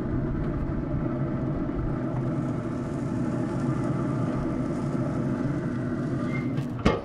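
Steady mechanical hum from a running Traeger wood-pellet grill, its fan and auger motor droning at an even pitch. A sharp click comes near the end.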